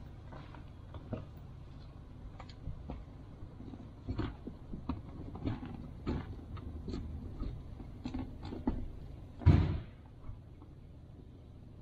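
Scattered short knocks and clicks, with one much louder thump about nine and a half seconds in.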